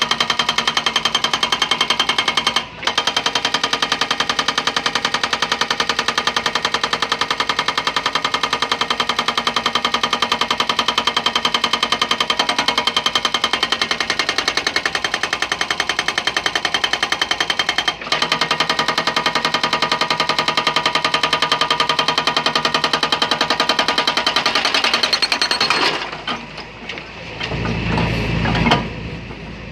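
Hydraulic breaker on an excavator arm hammering a reinforced concrete block: a fast, steady rattle of blows that breaks off briefly twice, about 3 and 18 seconds in, and stops a few seconds before the end.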